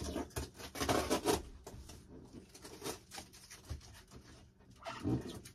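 Large cardboard box being handled and slid around: rustling and scraping of cardboard, loudest about a second in, with a few light knocks and another scrape near the end.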